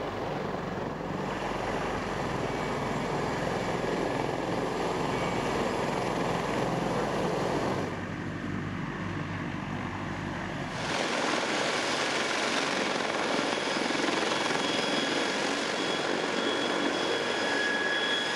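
Sikorsky CH-53K King Stallion heavy-lift helicopter running on the ground, rotors turning, with the noise of its three GE T408 turboshaft engines. There is a brief drop in level about eight seconds in. From about eleven seconds in there is less low rumble, and a steady high turbine whine stands out.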